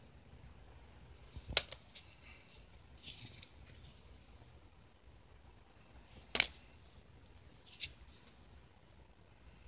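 Pokémon trading cards being handled: a few sharp card snaps, the two loudest about one and a half and six and a half seconds in, with soft paper rustles between.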